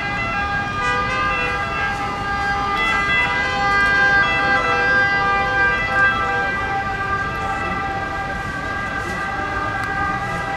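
Emergency vehicle siren sounding continuously, a few steady pitched tones that swell a little around the middle.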